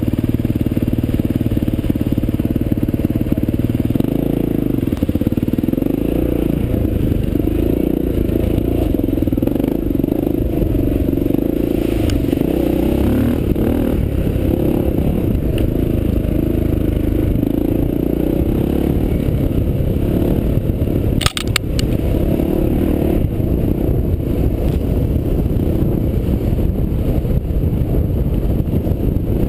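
Honda XR400's single-cylinder four-stroke engine running hard as the trail bike is ridden along a gravel track, the revs rising and falling. A single sharp knock about three-quarters of the way through.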